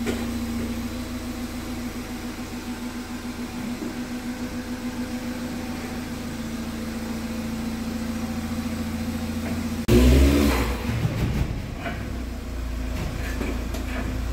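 Volkswagen Vento car engine idling steadily. About ten seconds in it is revved once, getting sharply louder with a climbing pitch, then drops back to a steady idle.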